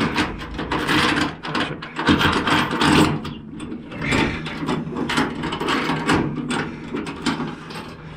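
Flatbed trailer's cargo-strap winch ratcheting, in quick irregular runs of clicks as the strap is tightened down over the load.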